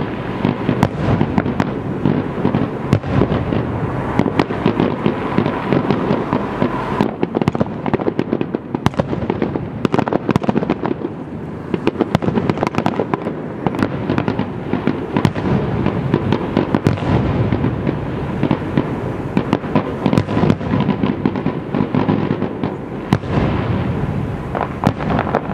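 Aerial fireworks shells bursting in a dense, continuous barrage of rapid, overlapping bangs with no let-up.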